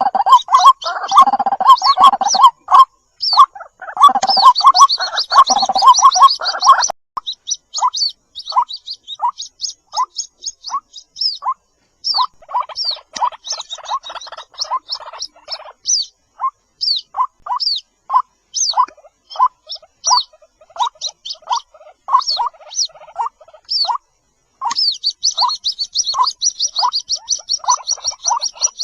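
White-breasted waterhen (ruak-ruak) calling over and over: a dense run of overlapping calls, then a steady series of short clipped notes about two a second with higher, downward-sliding squeaky notes above them, and a dense run again near the end.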